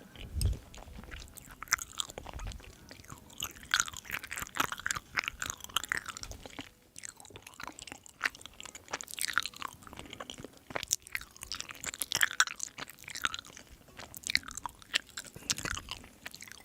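A person chewing and biting food close to the microphone, with crunching sounds coming at an irregular pace.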